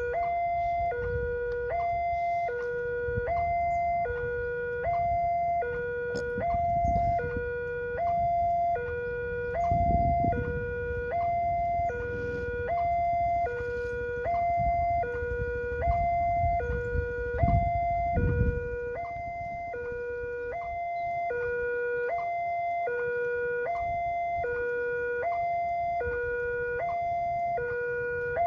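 Railway level-crossing warning alarm sounding while the barrier is down, warning that a train is approaching. It is an electronic two-tone signal that swaps between a lower and a higher tone at a steady rhythm, about once a second. Low engine rumble from waiting motorcycles swells under it a few times, loudest about ten and eighteen seconds in.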